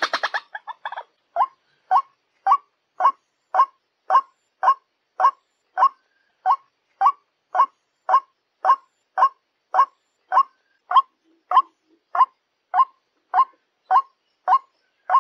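White-breasted waterhen calling a steady series of short, identical notes, about two a second. This is the monotonous call played as a lure to draw the birds in.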